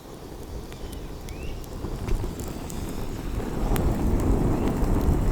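Gusty wind buffeting the microphone, a low rumble that grows stronger over the last few seconds as the wind picks up.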